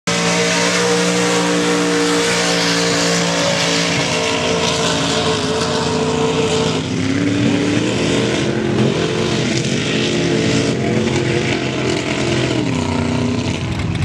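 Lifted mud bog truck's engine running hard under load as it drives through a mud pit, its pitch held steady at first, then revving up and down from about halfway on.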